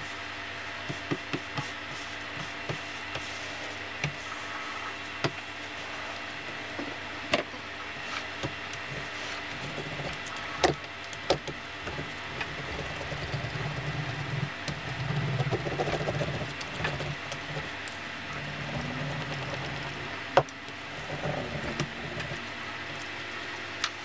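Small hand roller rolled back and forth over a snake hide on a cutting mat, a low rumble that swells in the middle, with scattered clicks and taps as the hide and tools are handled. A steady hum runs underneath.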